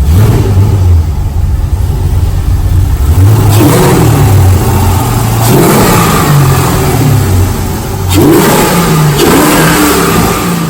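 LS V8 engine swapped into a Mazda RX7 FD, running and revved up and down in several blips.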